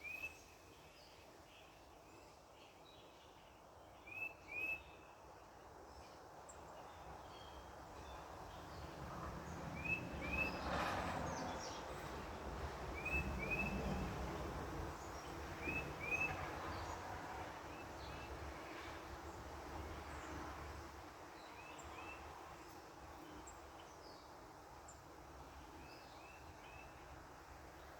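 Backyard ambience: a bird repeats short two-note chirps every few seconds. A vehicle passing on a road swells in the background through the middle and fades away.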